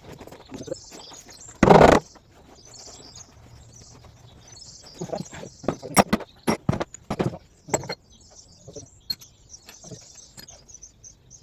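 Workshop handling noise during an axle strip-down: a loud clatter lasting a fraction of a second about two seconds in, then a quick run of sharp knocks and clinks from tools and parts being handled, with a few more spaced out near the end.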